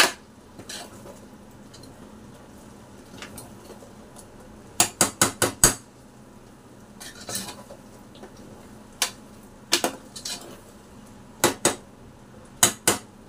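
Long metal spoon stirring masala in a stainless-steel pressure cooker, knocking against the pot's rim and sides: a quick run of four or five clinks about five seconds in, then single and paired clinks later on.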